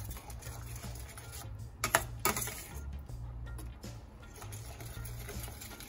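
Metal spoon stirring in a stainless steel skillet of simmering curry sauce, clinking against the pan with a couple of sharp clicks about two seconds in. Background music with a low bass line plays underneath.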